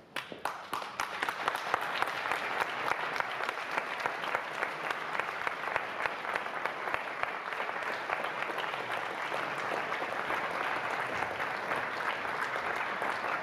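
Concert audience applauding. The clapping starts suddenly, swells over the first couple of seconds, then holds steady.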